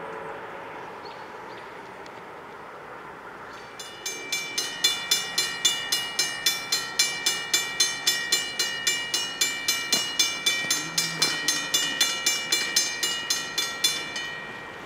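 A Safetran mechanical railroad-crossing bell starts ringing about four seconds in, struck in an even, fast rhythm of about four strokes a second, as the crossing activates to warn of an approaching train. It stops just before the end.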